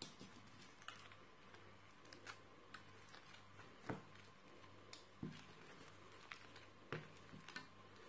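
Silicone spatula stirring and folding slime in a plastic bowl: faint, irregular clicks and ticks, the sharpest about four, five and seven seconds in, over a steady low hum.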